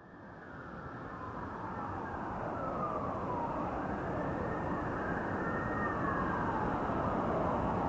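City traffic rumble fading in, with a distant siren wailing in repeated slow rises and falls over it.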